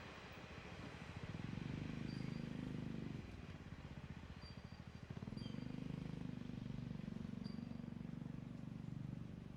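Low, finely pulsing engine rumble from vehicles. It swells twice: briefly from about a second in, then for several seconds from about five seconds in. A few faint, short high chirps sound over it.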